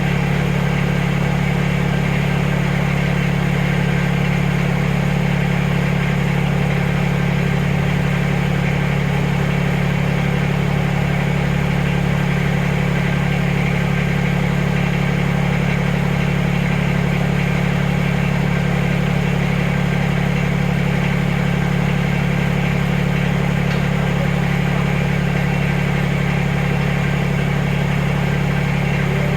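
A farm machine's engine running at a steady speed without a change in pitch.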